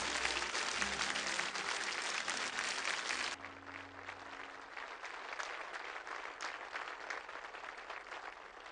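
Large audience applauding. About three and a half seconds in, the applause drops suddenly to a quieter, thinner clapping, which then slowly fades.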